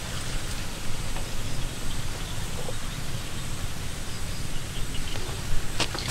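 Wind rumbling on the microphone over a steady outdoor hiss, with a couple of faint clicks near the end.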